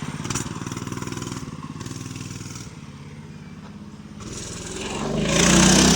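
Small mini bike engine running as the bike rides off, its note fading over the first few seconds, then growing louder again near the end as it comes back by.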